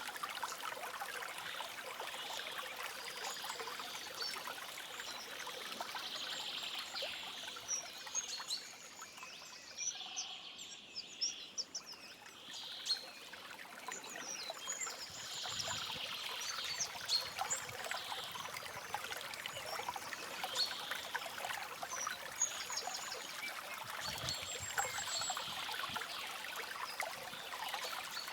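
Stream water trickling and flowing steadily, with small birds chirping now and then. The water sound thins briefly about ten seconds in.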